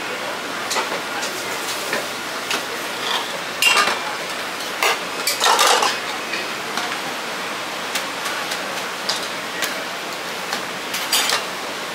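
Dishes and cutlery clinking and knocking at irregular moments over a steady background din, with the busiest clatter about four to six seconds in.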